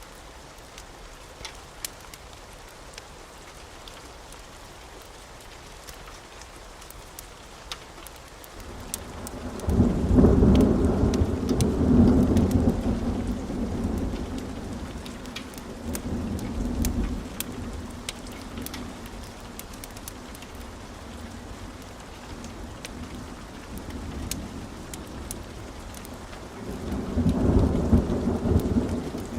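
Steady rain with scattered sharp ticks, and thunder rumbling in about a third of the way through and rolling on for around ten seconds before dying away; a second peal builds near the end.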